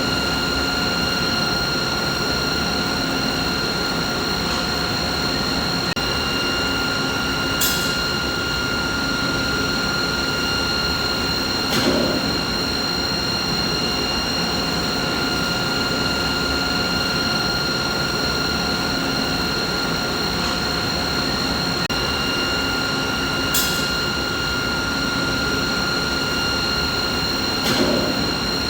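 Steady machine noise: a dense mechanical hum with a constant high-pitched whine in several tones over it. A few brief clicks come through, and the whole pattern repeats about every 16 seconds.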